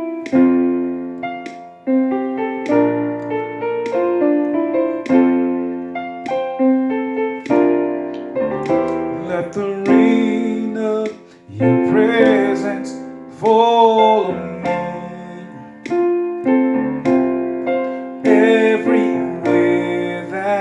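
Piano playing slow, sustained chords as the introduction to a gospel worship song. Each chord is struck and left to ring, and a voice with a wavering pitch comes in briefly near the middle.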